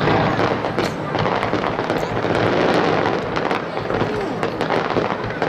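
Aerial firework shells bursting in a dense volley, with continuous crackling and many sharp pops.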